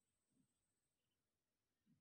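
Near silence, with two very faint, brief low thuds.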